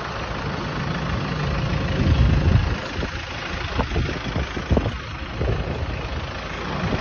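A vehicle engine idling, a steady low rumble that is louder for the first couple of seconds and then eases.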